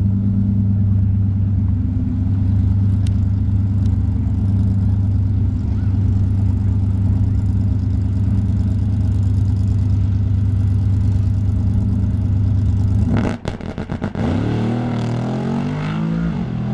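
Drag-racing pickup truck's engine idling loudly and steadily at the start line, then launching: after a brief choppy stutter about 13 seconds in, the revs climb sharply, drop once near the end at a gear change, and climb again.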